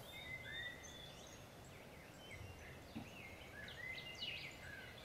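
Birds chirping faintly, a scatter of short whistled calls and sliding notes over a steady background hiss, with a soft tap about three seconds in.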